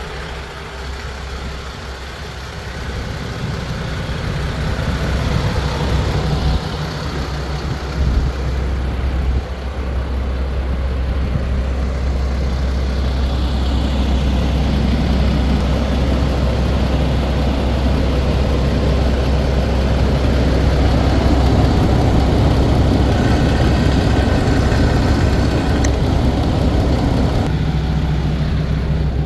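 MAN TGS 26.360 truck's diesel engine running, a steady low drone that grows louder over the first half and then holds.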